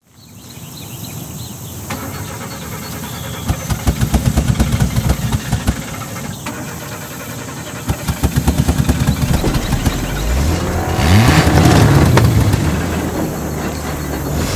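A car engine running with an uneven, lumpy beat, then revving about ten seconds in, the pitch rising before it holds high.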